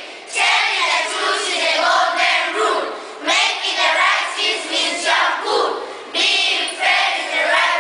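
A large group of children rapping in unison, their voices loud and rhythmic.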